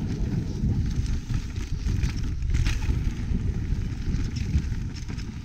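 Mountain bike rolling fast down a dirt and dry-leaf trail: a steady low rumble of tyre and wind noise on the camera's microphone, with scattered clicks and rattles from the bike over the ground.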